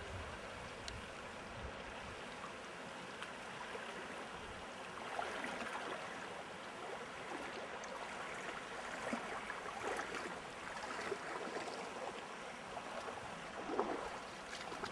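Traful River water rushing steadily over its bed, with a few faint clicks and knocks.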